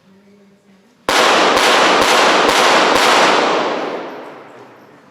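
Five rapid-fire pistol shots in .22 Short calibre, about half a second apart, starting about a second in. The shots are followed by a long echoing decay that fades out over about a second and a half.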